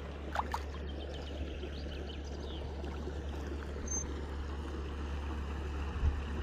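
Steady low rumble and water wash from a small boat moving along a river, with a few short bird chirps in the first couple of seconds.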